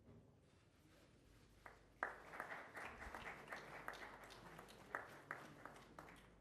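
Scattered applause from a small audience, starting about two seconds in and dying away near the end.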